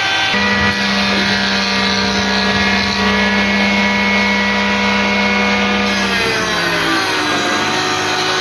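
Woodworking power tool motor running with a steady whine, its pitch sagging about six seconds in and starting to climb back near the end, as when the machine takes load in a cut.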